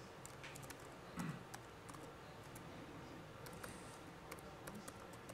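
Faint, scattered key clicks of laptop typing, with a soft low thump about a second in.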